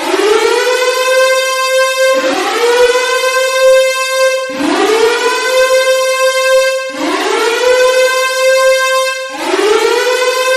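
Civil-defence (nuclear air-raid) siren sound effect, loud and wailing. Its pitch rises and levels off, and a new rise starts about every two and a half seconds over the still-sounding held tone.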